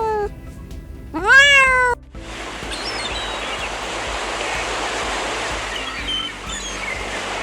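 A domestic cat meowing twice, the second meow rising and louder, about a second apart. About two seconds in, a steady hiss with faint high chirps takes over.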